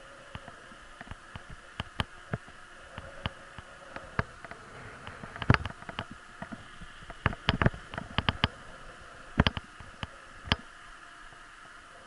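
Irregular sharp clicks and knocks, bunched in the middle and latter part, over a steady low hiss: a bicycle-mounted camera jolting and rattling as the bike rolls over a paved road.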